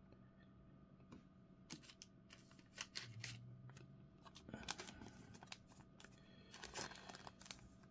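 Faint crinkling and clicking of a thin plastic penny sleeve and a chrome trading card being handled as the card is slid into the sleeve, in scattered bursts, busiest around the middle and near the end.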